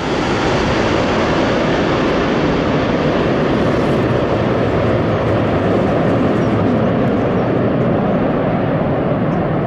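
Airbus A330 jet engines running loud and steady: a dense, even rush of jet noise.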